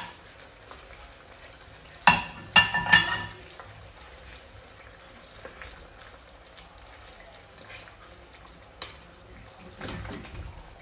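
Plastic slotted spatula knocking and scraping against a frying pan in a quick cluster about two seconds in, with a few lighter taps later. Under it, the fish curry simmers in the pan with a quiet, steady sizzle.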